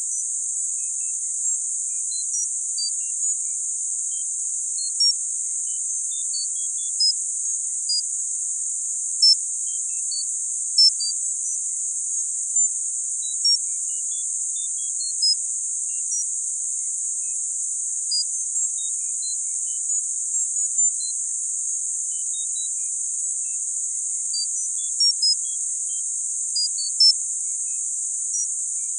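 Tinnitus-masking sound: a steady high-pitched hiss of band-limited noise, sprinkled with brief high tones at random pitches that come at irregular times, about one or two a second.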